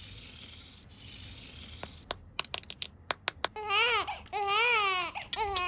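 A quick run of sharp plastic clicks, then a toy's recorded baby sound: high, wavering crying calls that rise and fall several times.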